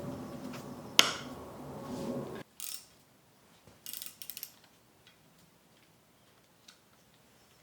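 Hand ratchet wrench clicking in short bursts while the head nuts are worked in torque stages. Before that, a steady sound with a sharp clack about a second in cuts off suddenly.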